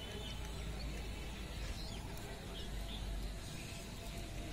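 Faint outdoor ambience: a steady low rumble with a few faint, scattered bird chirps.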